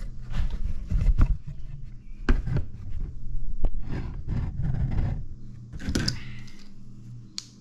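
Irregular clunks, scrapes and a few sharp clicks as a golf-cart engine block and tools are handled and moved about on a workbench.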